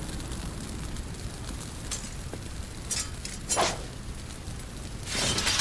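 A large fire burning, with a steady hiss and crackle, a few sharp cracks, a falling whoosh about three and a half seconds in, and a louder rush of flame near the end.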